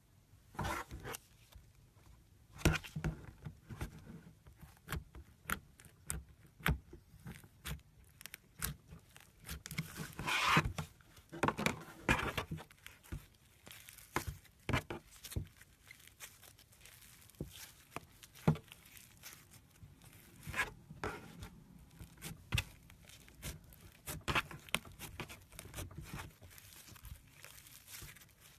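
Slime being squished and stretched by hand: an irregular run of sticky crackles, clicks and pops, busiest about a third of the way in.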